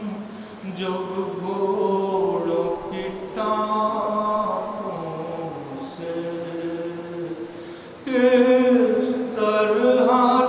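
A man's voice chanting a melodic recitation into a microphone, holding long notes that glide slowly in pitch; it grows louder about eight seconds in.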